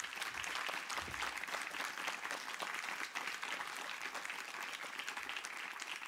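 Audience and panelists applauding, a steady patter of many hands clapping at once.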